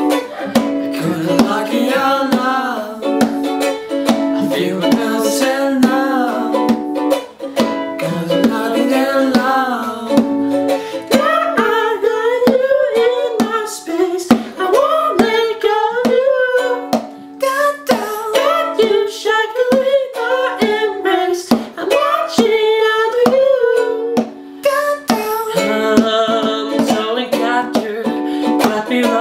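Ukulele and acoustic guitar playing chords, with a lead vocal singing through most of it and steady hand percussion beaten on a chair keeping the beat.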